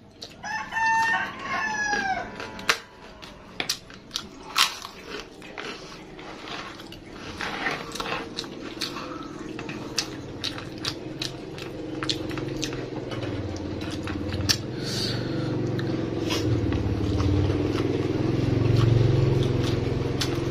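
A rooster crows once, about half a second to two seconds in, over close, sharp crunching of a large fried cracker being bitten and chewed. The crunches thin out after the first half, and a low steady drone swells toward the end.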